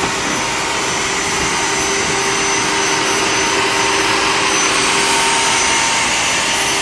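Cordless stick vacuum cleaner running steadily at full suction: a loud rush of air with a high-pitched motor whine.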